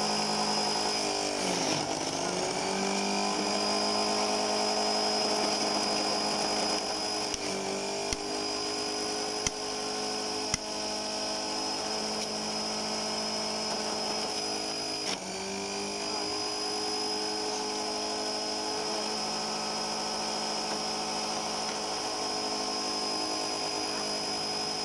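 Centrifugal juicer's electric motor running with a steady whine whose pitch sags and then climbs back about three times as food is pushed down the feed chute and loads the spinning blade basket. A few sharp clicks in the middle.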